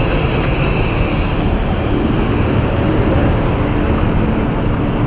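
Steady rushing wind and road noise on the microphone of a moving bike, with traffic around it.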